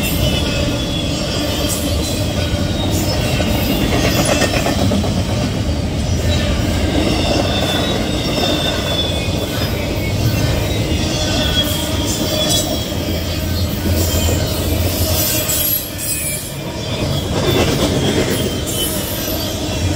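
Double-stack intermodal freight train passing close by, its steel wheels rumbling steadily on the rails, with thin high wheel squeals sliding in pitch now and then.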